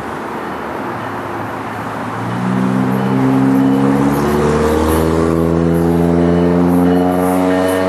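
Amtrak AEM-7 electric locomotive accelerating, its traction motors giving a whine that climbs steadily in pitch over the rumble of the train. The whine and rumble grow louder about two and a half seconds in.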